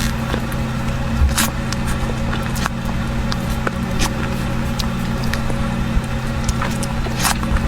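Close-up eating sounds: scattered short clicks and smacks of creamy fruit cake being eaten, over a steady low hum.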